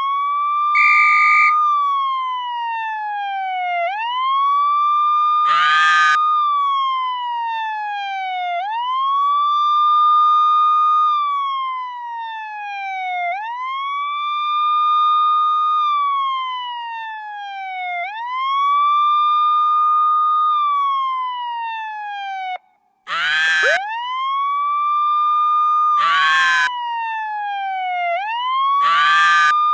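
A siren wailing in slow cycles, each rising quickly to a held high note and then sliding slowly down, about every four to five seconds. Brief harsh noises break in over it five times, and the sound cuts out for a moment about two-thirds of the way through.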